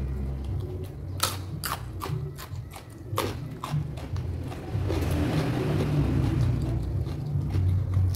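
Raw vegetables being bitten and chewed close to the microphone: a quick series of sharp crunches in the first few seconds, then softer chewing, over a steady low rumble.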